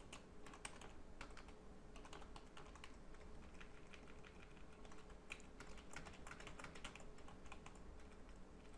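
Computer keyboard being typed on: faint, quick keystrokes in irregular runs, over a low steady hum.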